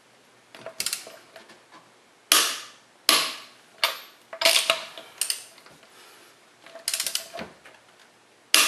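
Half-inch click-type torque wrench and socket on car wheel lug nuts: short bursts of ratchet clicking alternating with single sharp metallic clicks, one every second or so. The sharp clicks are the wrench breaking over as each nut reaches its set 90 foot-pounds.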